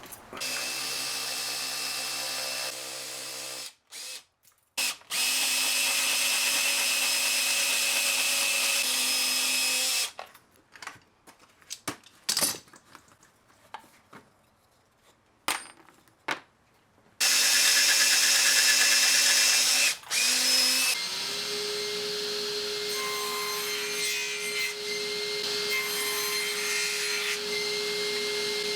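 Drill press running and boring a hole in wood in several stretches, stopping for a few seconds between them with a few knocks. Near the end it gives way to a steadier hum with one clear tone.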